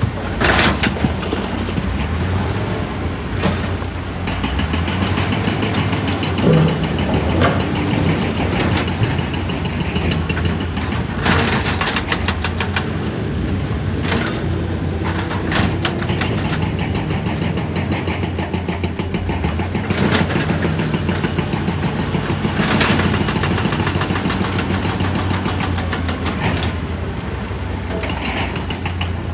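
Excavator's diesel engine running steadily under load, with stretches of rapid repeated hammering against rock and scattered single knocks.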